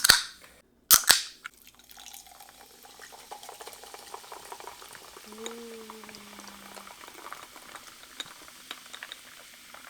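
A can of sparkling water cracked open with two loud, sharp snaps, then a steady fizzing, crackling hiss of carbonation.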